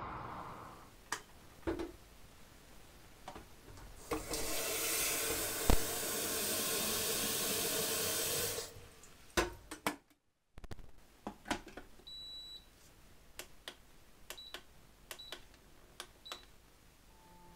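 Tap water runs into a stainless steel electric kettle for about four seconds, with clicks of the tap lever and kettle lid around it. Later, pressing the kettle's handle buttons gives a longer high beep followed by three short beeps.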